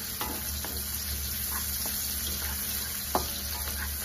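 Sliced onions and garlic sizzling in hot oil in a metal wok as they are sautéed, stirred with a wooden spatula that scrapes and knocks against the pan a few times, most sharply a little after three seconds in. The onions and garlic are turning brown.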